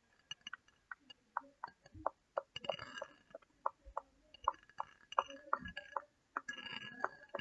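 Irregular, quick sticky clicks and crackles, with two short rustling stretches, from hands working a product through hair to loosen slime.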